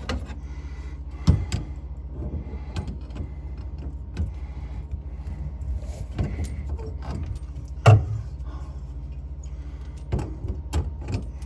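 Sink drain pipe fittings being handled and fitted together: scattered clicks, clinks and knocks, the loudest about a second in and near the middle, over a steady low hum.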